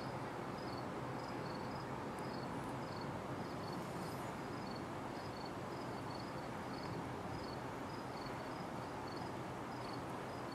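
Outdoor background: a steady low rumble of noise under a faint, high insect chirp that repeats evenly about three times a second.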